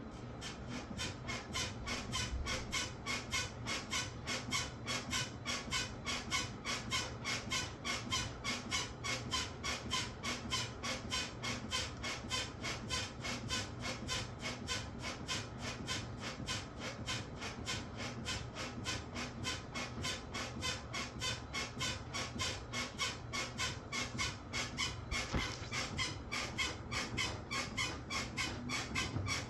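Washing machine squeaking rhythmically as it runs, a fast, even train of short high-pitched squeaks, about three or four a second, over a steady low hum.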